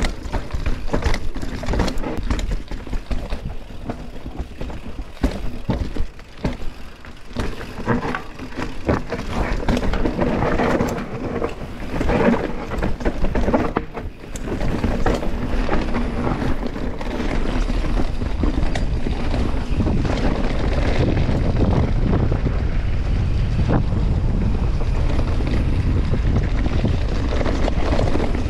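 Mountain bike riding fast down a rooty, rocky dirt trail, heard from a rider-mounted action camera: tyres rumbling over the ground and the bike rattling, with frequent sharp knocks from roots and rocks, and wind buffeting the microphone. The knocks thin out after about halfway and the rumble becomes steadier.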